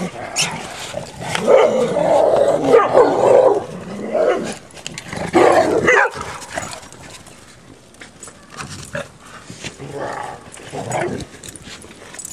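Several dogs barking during rough play, wrestling and mouthing each other. The barks are loudest in the first half, with quieter bursts later.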